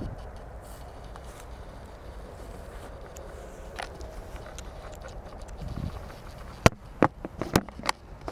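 Fire burning in a small wood stove: a low steady rumble with faint crackles, then a quick run of five or six sharp knocks near the end.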